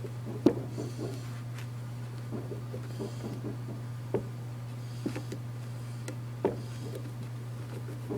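Handling noise from a plastic shotgun shell being worked open by hand: light scraping and rubbing with a few sharp clicks and knocks, the loudest about half a second in and others around four and six and a half seconds. A steady low hum sits underneath.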